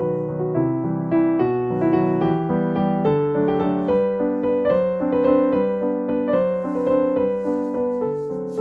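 Background piano music: a gentle melody played over sustained chords.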